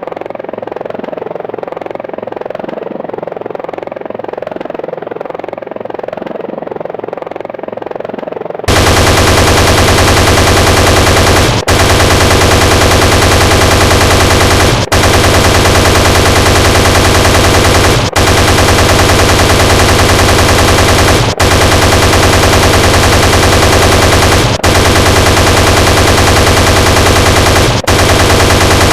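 Apache attack helicopter sound effect: the rotor runs steadily, then about nine seconds in the loud 30 mm chain gun opens fire in a continuous rapid stream, broken by brief gaps every three seconds or so.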